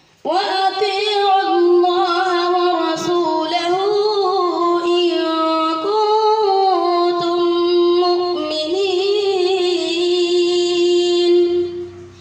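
A boy reciting the Quran in melodic tilawat style: one long unbroken phrase of held, ornamented notes, starting just after a breath and tailing off near the end.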